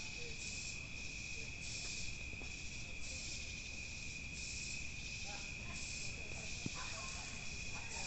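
Night insect chorus: crickets trilling steadily, with a higher pulsing buzz from other insects that swells about once a second.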